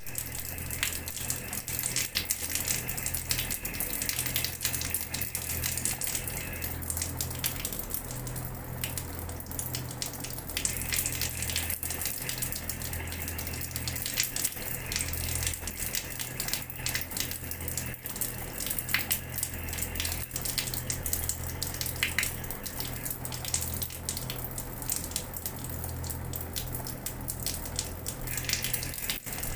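Water running steadily from a tap and splashing onto a floor, a continuous spatter with many small splashes over a low, even hum.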